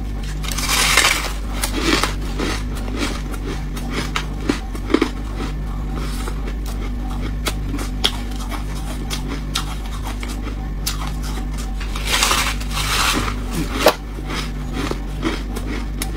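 Teeth biting into a block of refrozen freezer frost and chewing it: a long crunch about a second in and another about twelve seconds in, with many small crackling crunches of chewing between, over a steady low hum.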